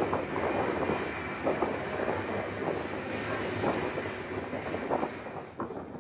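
Iron ore train's steel wagons rattling and clanking continuously as the train rolls along the track.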